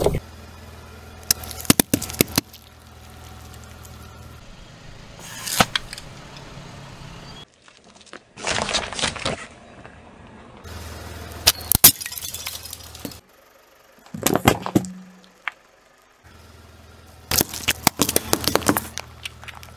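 A car tyre rolling over and crushing small objects such as apples and plastic jelly cups: a string of separate crunches, cracks and snaps, a few seconds apart, with a low engine hum under some of them.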